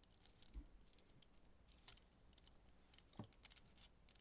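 Faint, scattered light clicks and ticks of small plastic kit parts and tiny screws being handled, with a soft knock about half a second in and another a little after three seconds.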